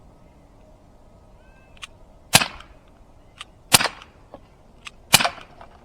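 Umarex Glock 19 CO2 BB pistol (non-blowback) firing three shots, about a second and a half apart, each a sharp pop, with fainter ticks between them.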